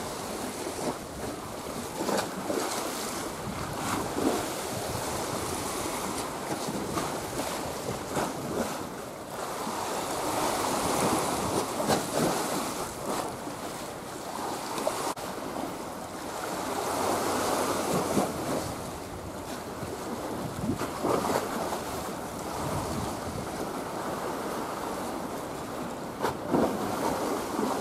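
Waves washing and splashing along the shore, with wind buffeting the microphone, swelling and easing in loudness every few seconds. No steady engine note stands out.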